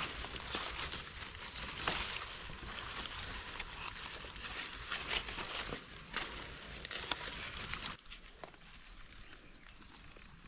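Dry leaves and grass rustling and crackling with sharp clicks as gloved hands dig out and trim a wild mushroom with a knife in the leaf litter. About eight seconds in the rustling drops away, leaving a faint high ticking that repeats a few times a second.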